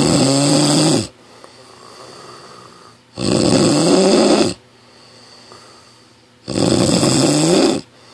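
Loud snoring: three long snores about three seconds apart, each with a rumbling pitch that bends up and down, and quieter breathing between them.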